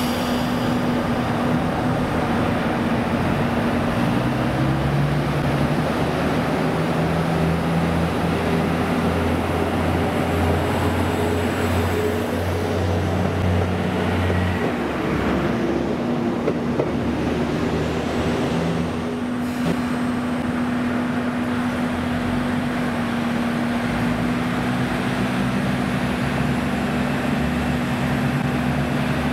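JR diesel railcar engines running at a station platform with a steady hum. The deeper part of the engine note drops away about halfway through.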